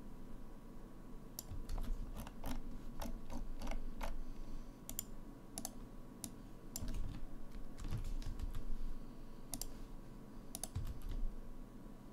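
Computer keyboard and mouse in use: irregular, sharp key and button clicks in small clusters, over a faint steady hum.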